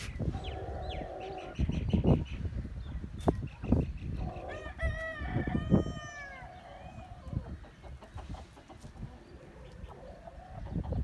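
Chicken calling: a short call about half a second in, then a longer crow-like call of several arching, falling notes around five to six seconds in. A few low knocks come and go.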